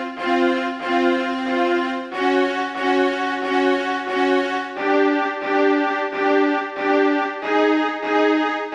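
Background music led by sustained bowed-string notes, pulsing about twice a second, with the harmony shifting every two to three seconds.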